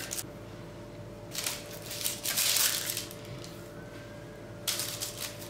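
Baking paper rustling and crinkling in three short bouts as soft pieces of yeast dough are set down on a lined baking tray.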